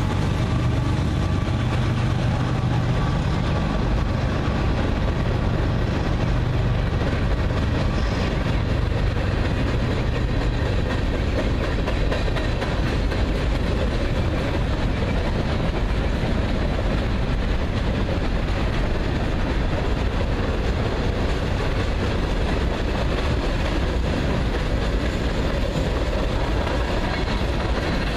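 Long freight train's cars rolling steadily past, a continuous rumble of steel wheels on rail. The low engine drone of its diesel locomotives, just gone by, fades over the first several seconds.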